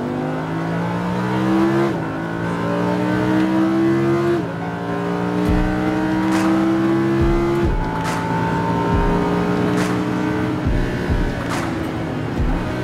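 Lamborghini Huracán's 5.2-litre naturally aspirated V10 under hard acceleration, heard from inside the cabin: the pitch climbs and drops sharply at upshifts about 2, 4.5 and 7.5 seconds in, then holds high before falling near the end.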